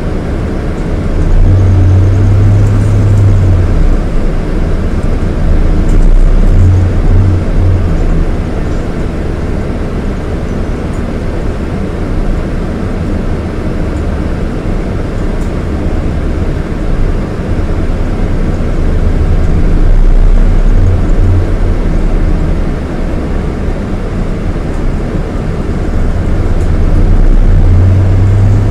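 Scania K230IB coach's 230 hp Scania DC9 five-cylinder diesel engine heard on board while driving: a deep drone that swells under power several times and eases off in between.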